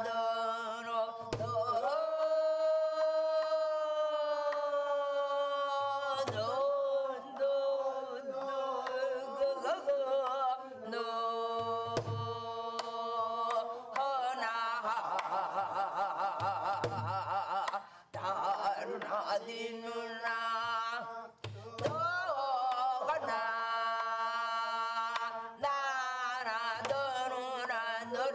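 Korean gueum singing: a solo voice sings a wordless melody on vocable syllables like "na-neo", holding long notes that waver and slide. Low drum strokes come every few seconds underneath.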